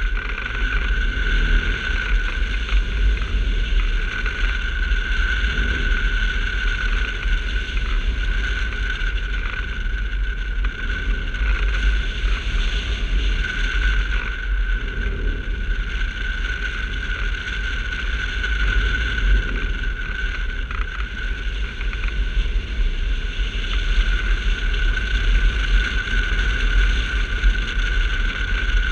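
Rushing airflow over a hang glider's wing-mounted camera in flight: steady, heavy wind rumble on the microphone with a continuous high whistle running through it.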